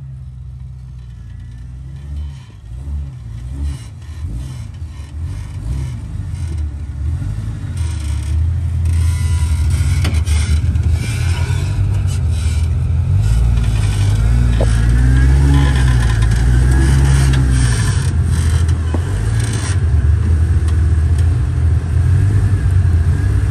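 Lifted Jeep Cherokee's engine revving up and down under load as it crawls up a boulder ledge, growing louder about a third of the way in. Occasional knocks and scrapes of tyres and chassis on rock.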